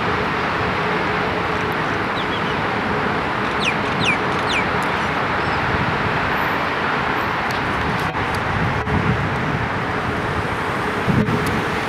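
Steady hum of city road traffic, with a bird giving three short falling chirps about four seconds in.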